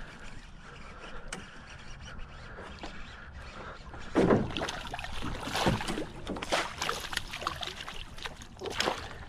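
Hooked smallmouth bass splashing at the surface beside the boat and being scooped into a landing net. The splashing starts suddenly about four seconds in and comes in repeated short bursts.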